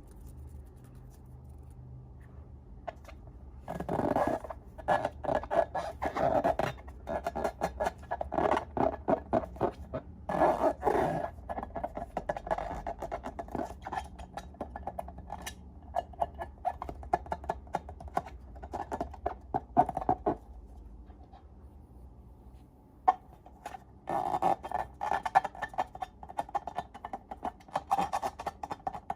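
Slime being squished and worked by hand, giving runs of rapid sticky clicks and pops. The clicking pauses for a few seconds about two-thirds of the way through, then starts again.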